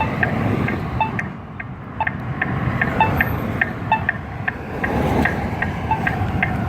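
Polara Navigator accessible pedestrian push button beeping: short, evenly repeated tones several times a second, from a faulty unit that has just started working again after cutting out. Street traffic runs underneath.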